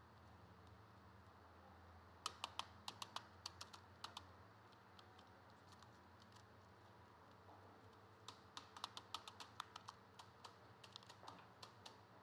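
Quick, light clicks and taps in two runs, several a second, as enamelled copper coil wire is worked into the slots of a large three-phase motor stator by hand and with a thin rod.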